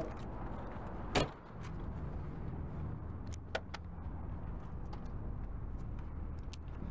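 Sounds of handling a car, with a car door among them: one thump about a second in and a few light clicks, over a steady low rumble.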